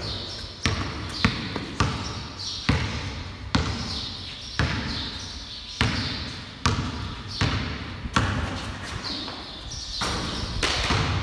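Basketball bouncing on a concrete floor: a string of sharp bounces at an uneven pace, roughly one a second, as the ball is dribbled and played.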